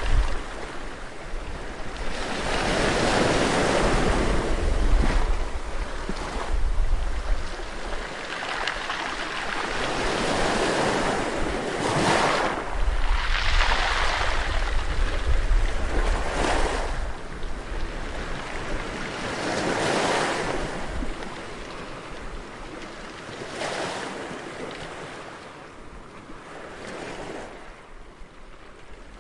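Sea waves breaking and washing up a shore, surging every few seconds, with wind rumbling on the microphone at times. The surf fades down near the end.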